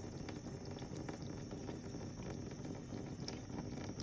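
Ginger tabby cat lapping water, a quick run of small wet laps.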